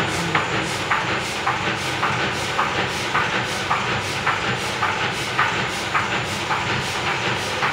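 Offset printing press running with a steady hum and a regular clack about twice a second.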